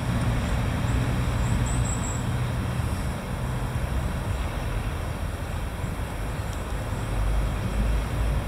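Steady low outdoor rumble of background noise, with a faint short high chirp about two seconds in.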